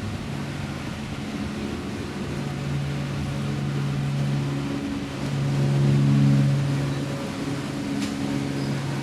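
A steady, low mechanical hum with a droning pitch, swelling louder about six seconds in and then settling back.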